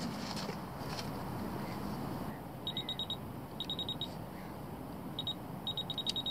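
Electronic carp/pike bite alarms beeping in short quick runs of one high tone as the rods are set on their rests, the last run the longest.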